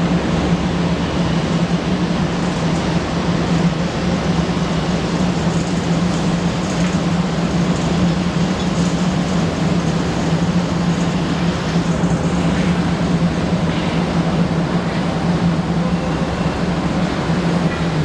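Steady mechanical hum with a broad, even rushing noise over it, unchanging throughout.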